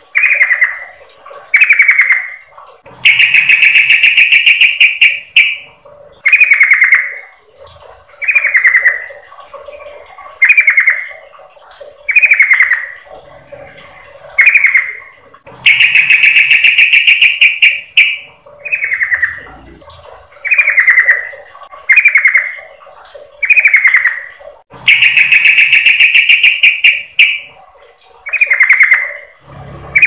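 Yellow-vented bulbul (trucukan) calls, presented as a female's call used as a lure to bring males in: short falling calls repeating every second or two. Three times a longer trilled call of about two and a half seconds breaks in.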